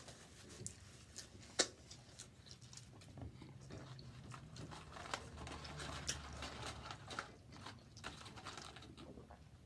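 Close-miked chewing and wet mouth clicks of someone eating fast food. There is a sharper click about a second and a half in.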